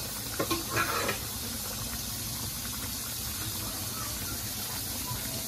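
Gilbaka fish curry with okra simmering in a wide pan, a steady bubbling hiss.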